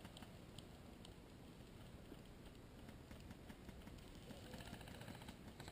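Near silence, with a few faint scattered clicks and a faint rapid run of ticks in the last second or so.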